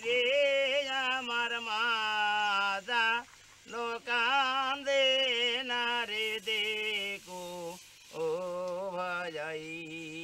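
A solo voice singing a slow melody in long, wavering held notes, breaking off briefly about three seconds in and again near eight seconds.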